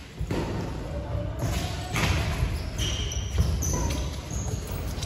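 Badminton rackets hitting a shuttlecock back and forth during a doubles rally, with sports shoes squeaking briefly on the wooden court floor.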